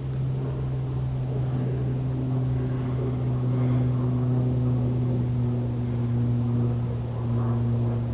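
A steady low mechanical hum at an even pitch, with no clear change.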